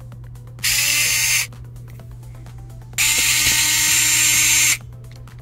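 Electric precision screwdriver running in two bursts, one of about a second and then one of nearly two seconds, each a steady motor whine, as it backs out small screws from a laptop's power-button bracket.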